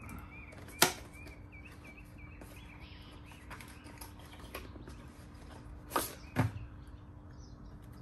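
Small cardboard product box being opened and its contents handled: a sharp click about a second in, soft handling noises, and two knocks near six seconds.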